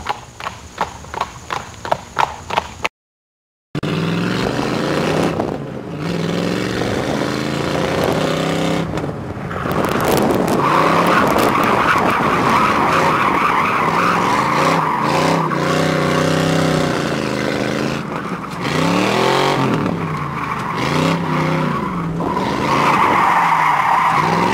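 Galloping hoofbeats, a moment of silence, then a Ford Mustang 5.0 V8 revving up and down again and again while drifting, with the tyres squealing in long stretches, heard from inside the car.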